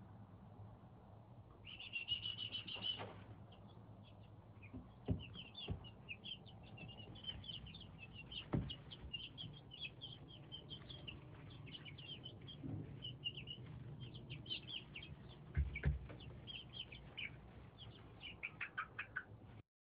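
Several young chicks peeping in a brood, many short high-pitched calls, busiest about two seconds in, over a steady low hum. A few thumps stand out, about five, eight and a half and sixteen seconds in.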